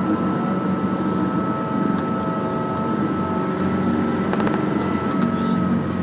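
Route bus heard from inside the cabin: a steady engine and road rumble with a constant whine above it.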